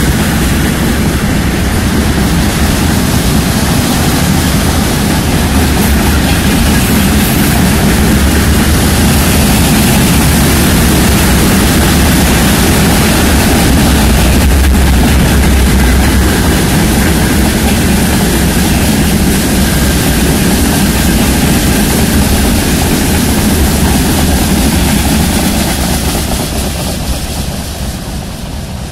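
Freight train wagons (tank cars, boxcars and gondolas) rolling past close by: a loud, steady rumble of wheels on rails. About 26 seconds in it fades as the last wagons pass and draw away.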